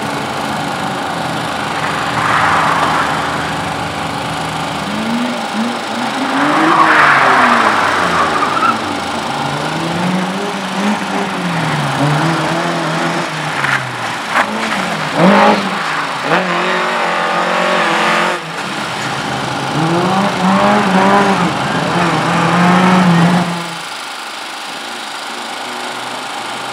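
A car driven hard, its engine revving up and falling back again and again through gear changes, with the tyres squealing in several spells. Near the end the revving stops and a steadier, quieter engine sound is left.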